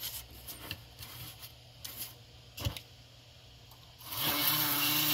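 Light clicks and taps as alligator-clip power leads are touched to an N scale model locomotive. About four seconds in, its small electric motor starts running in reverse with a steady whirring hum.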